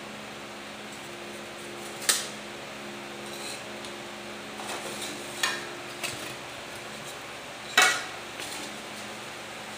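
A few sharp knocks and light clatters as cut foam discs are handled and set down on a wooden table, the loudest about two seconds in and again near the end, over a steady low hum.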